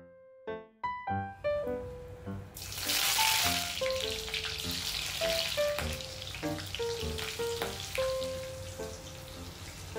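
Gentle piano background music throughout. From about two and a half seconds in, hot oil sizzles steadily as food fries in a kadhai.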